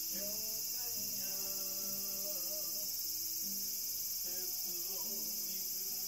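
Cicadas buzzing outside in a steady high-pitched drone, with a man singing a slow melody faintly from another room.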